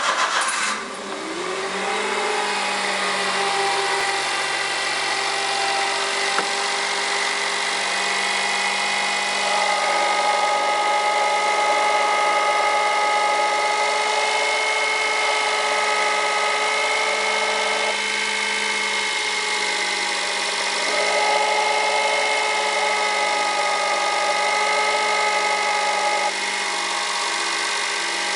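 Honda Vamos engine catching and settling into a steady idle, with high-pitched whining tones from the alternator over the running engine: the abnormal alternator noise. The whine changes a few times as it runs.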